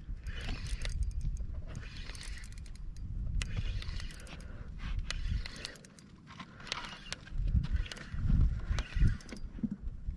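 Wind rumbling on the microphone, with repeated bursts of rustling hiss and light clicks from gear being handled. From about seven and a half seconds in come louder low thumps and rubbing as a shirt sleeve brushes across the microphone.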